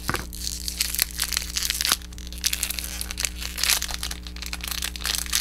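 Small toy blind-pack packaging being opened by hand: a dense, irregular crinkling and crackling of thin packaging, with a steady low hum beneath.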